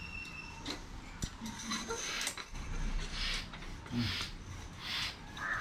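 Hand-operated floor air pump being worked to inflate a vinyl inflatable pool, each stroke a short hiss of air, about one stroke every 0.8 s through the second half, with light clinks and clicks of the pump before that.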